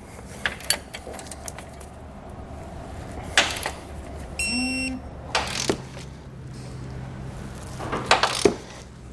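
Torque wrench and socket tightening steel base-plate bolts to spec: scattered metallic clicks and clanks on the hardware, the sharpest about three and a half seconds in and a quick cluster near the end. A short high electronic beep sounds about four and a half seconds in.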